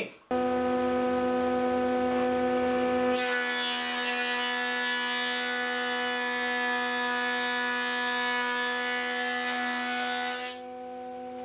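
King Industrial 15-inch thickness planer: its motor and cutterhead start up and run with a steady whine. About three seconds in, a board feeds through the cutterhead, and for about seven seconds a loud hissing cut lies over the whine. Then the planer runs on empty, quieter.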